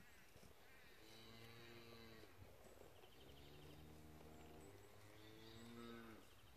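Faint, distant cattle mooing: three long, low calls, each dropping in pitch as it ends.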